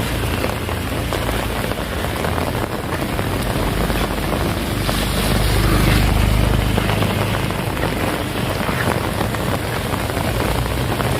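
Heavy rain falling steadily, a dense even hiss, with a low rumble swelling about midway through.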